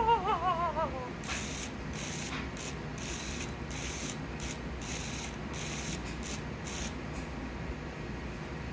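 A warbling electronic toy voice for about a second, then the small motor and gears of a furless robot toy whirring in short, irregular bursts as its ears move, over a faint steady hum.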